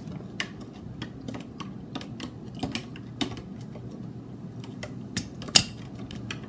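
A spoon stirring a drink in a plastic measuring jug, clicking against the sides in irregular light knocks, with one louder knock near the end.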